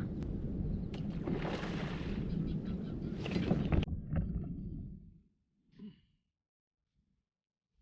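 Wind rumbling on the microphone, with a few sharp knocks, then cutting out to near silence about five seconds in.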